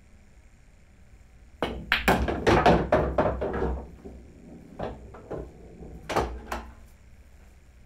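Pool shot: the cue tip strikes the cue ball, which clacks into the object ball, and the pocketed ball rattles away inside the table for about two seconds of clattering. The cue ball stops close to where the object ball sat, a stop shot. A few separate lighter knocks follow.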